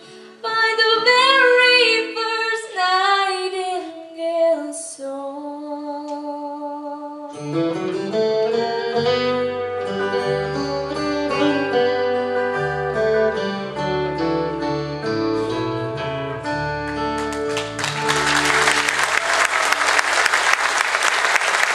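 A female country singer finishes the song over acoustic guitar, ending on a long held note. Then the guitars play a closing instrumental passage, and the audience breaks into applause about three-quarters of the way through.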